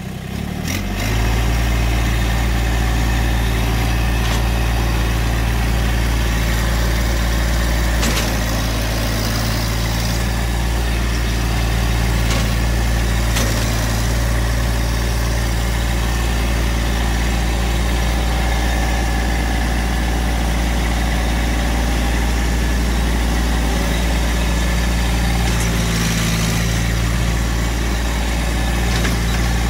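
Massey Ferguson compact tractor's engine running steadily as its front loader digs a bucket of sand, getting louder about a second in.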